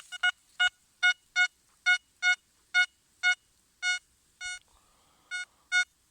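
XP ORX metal detector giving about fourteen short, same-pitched beeps, roughly two a second, as the coil sweeps back and forth over a buried target. This is the clean, repeatable 92 signal that the detectorist takes for silver.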